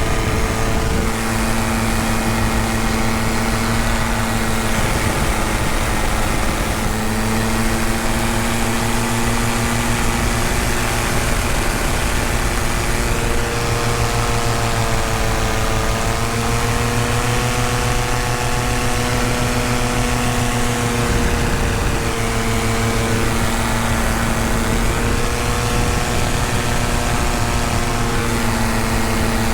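Paramotor engine and propeller droning steadily under power in flight, its pitch wavering slightly up and down.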